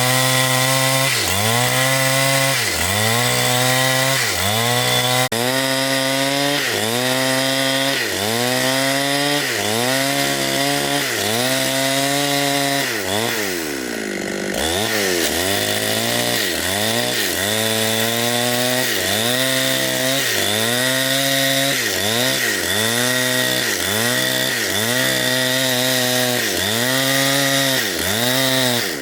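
Two-stroke chainsaw cutting into a big tree trunk, its engine pitch dipping and recovering about once a second as the chain bites. About halfway through the revs sag more deeply, then climb back.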